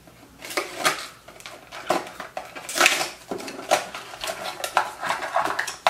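Kitchen knife cutting and prying open a plastic-and-cardboard charger package: irregular scraping, clicking and crackling of the blade against the plastic.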